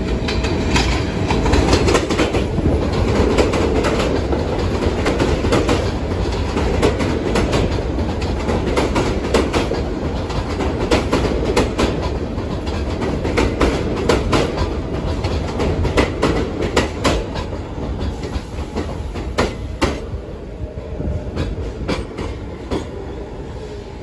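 R46 subway train running into an elevated station, its wheels clacking over rail joints with a steady rumble. Over the last several seconds it slows, and the clatter thins out and fades as it comes to a stop.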